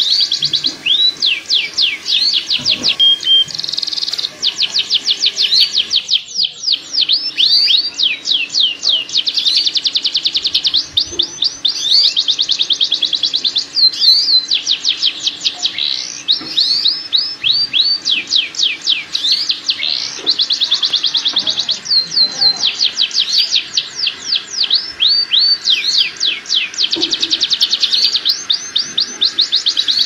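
Domestic canary singing a long, unbroken song of fast, high trills and rolls, the phrases changing every second or two. This is the breeding-season song used as a lure to bring canaries into mating condition.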